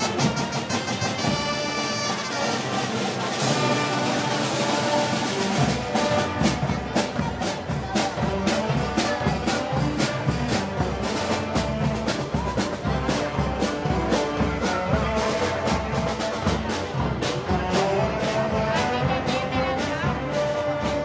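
Brass band playing Spanish festival music of the Moros y Cristianos kind, trumpets and trombones carrying the tune. Drums with a steady beat come in about six seconds in.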